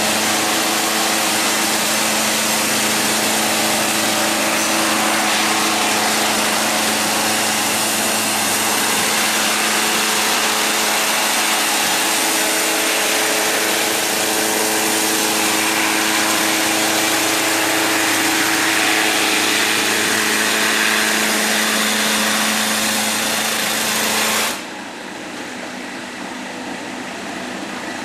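Electric concrete scarifier running, its rotating cutter drum chipping old epoxy coating off a concrete floor: a loud, steady grinding noise over the motor's hum. About three seconds before the end the grinding stops abruptly, leaving a quieter running sound.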